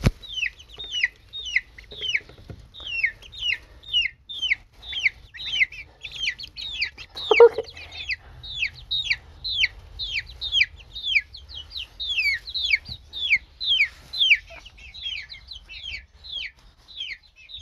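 Baby chicks and ducklings peeping steadily, a stream of short high chirps that each fall in pitch, about three a second. A single lower, louder call comes about halfway through.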